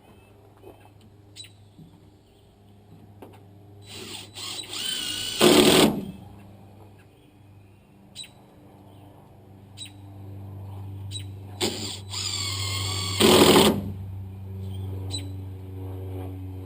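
Cordless drill driving fasteners in two runs, about 4 seconds in and about 12 seconds in. Each run is a whining motor that ends in a short, louder burst. A steady low hum sits underneath throughout.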